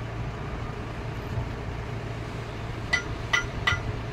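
Three quick, ringing metallic clinks near the end, metal striking metal as the lock is fitted onto a car AC compressor's clutch, over a steady low hum.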